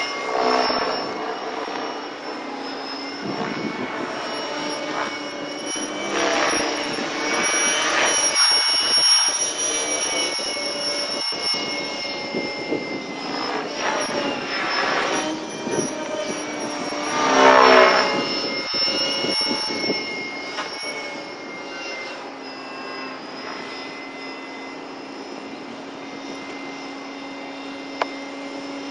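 T-Rex 600 electric RC helicopter in flight: a steady motor and rotor whine that swells and sweeps in pitch several times as it passes, loudest about two-thirds of the way through.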